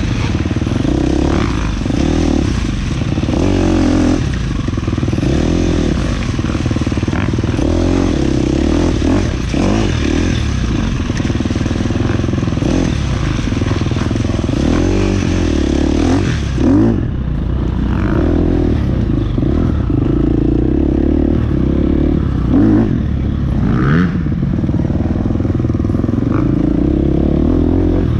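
Dirt bike engine heard from on board while riding a muddy trail, its revs rising and falling with the throttle, with scattered knocks and rattles as the bike goes over rough ground.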